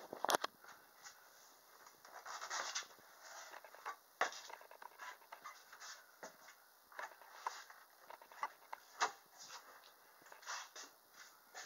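Camera handling noise: irregular rubbing and scratching with scattered light clicks and a few sharper knocks.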